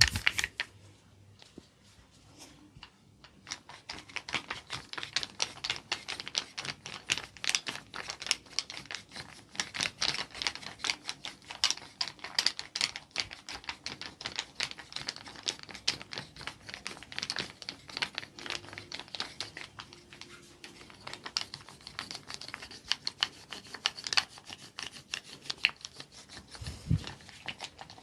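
Rapid, irregular light taps and clicks of percussive massage strokes on the body, many a second, starting about three seconds in. A low thump near the end.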